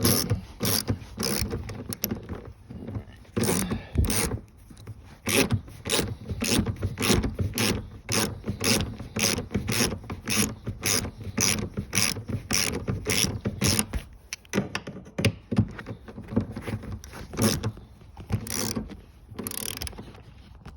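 Hand socket ratchet cranked in steady short strokes, clicking about two to three times a second, backing out a seat-mounting bolt that has just been broken loose. There are brief pauses twice near the end.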